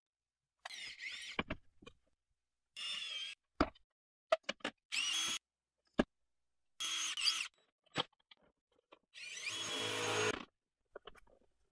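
A cordless drill run in five short bursts into a wooden mounting board, its motor whine wavering in pitch, with the longest and deepest burst near the end. Sharp clicks and taps fall between the bursts.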